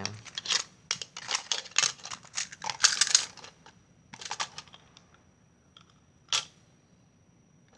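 Quick, irregular clicking and clattering of small hard objects being handled, dense for the first few seconds, then a short cluster and one last sharper click.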